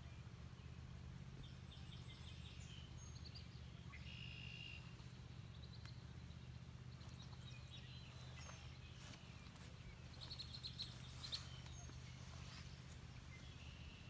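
Faint birdsong from small birds: scattered short chirps and a few quick trills, clearest about a second and a half in, around four seconds and again near ten to eleven seconds, over a low steady hum.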